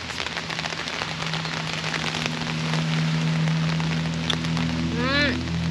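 Heavy rain falling steadily, with background music coming in soon after the start as low sustained notes that grow louder. Near the end there is a short pitched sound that rises then falls.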